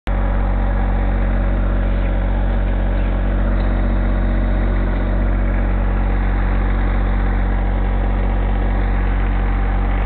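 John Deere 1025R compact tractor's three-cylinder diesel engine running at a steady speed, with an even, unchanging drone.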